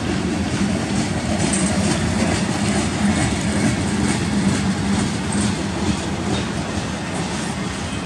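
Mixed freight train cars rolling past: a steady rumble of steel wheels on rail, with irregular faint clicks from the wheels over the track.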